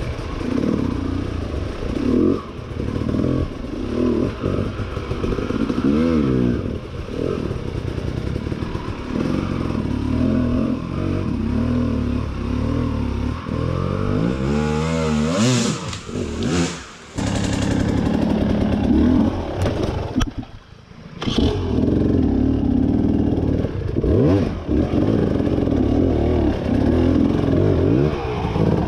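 Husqvarna enduro dirt bike engine revving up and down as it is ridden over a trail, pitch rising and falling with the throttle. A little past halfway the engine drops off sharply twice, briefly.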